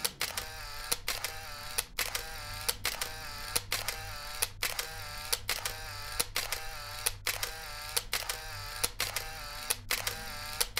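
Camera shutter clicking over and over, about two to three clicks a second, each click followed by a short whirring tone that dips and rises, like a camera firing a burst.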